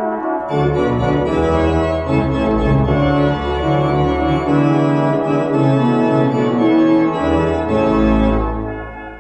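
Organ music: held full chords over deep bass notes that come in about half a second in, with the music dying away near the end.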